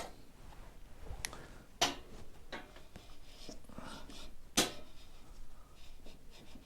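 A few sharp clicks and clinks of a spanner working on an engine's valve gear while tappet clearances are set, the two loudest about two seconds and four and a half seconds in.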